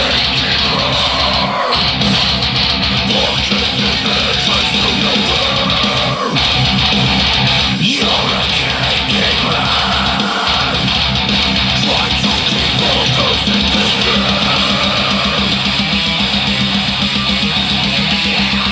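Heavy metal song playing: fast, dense distorted electric guitars with bass and drums, the band briefly cutting out for a split second a few times.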